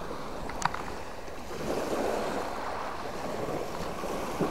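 Gentle surf washing onto the shore, swelling with a wave about a second and a half in. A single brief sharp click sounds just over half a second in.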